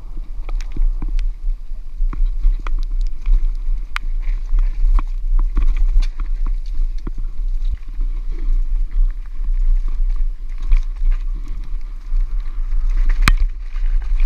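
Downhill mountain bike ridden fast over a rough dirt trail: frequent sharp clacks and rattles from the bike over the bumps, over a steady wind rumble on the camera's microphone.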